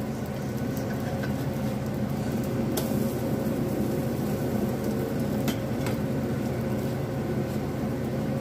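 French toast frying in coconut oil in a pan on a gas stove, with a spatula knocking against the pan about three times. A steady hum runs underneath.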